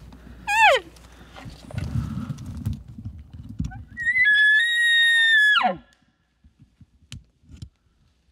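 Elk calls: a short falling cow call about half a second in, then about four seconds in a bull elk bugle, a high whistle held for about a second and a half that drops sharply in pitch at the end.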